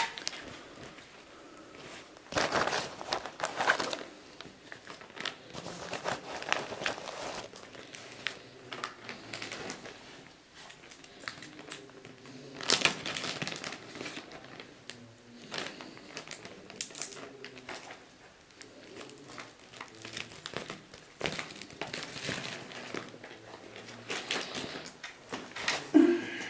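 Intermittent rustling and crinkling every few seconds in a quiet small room, with short stretches of near stillness between.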